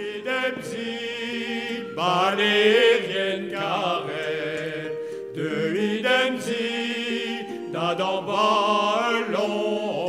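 Men's choir singing slow, sustained phrases, the phrases swelling and breaking off every two to three seconds.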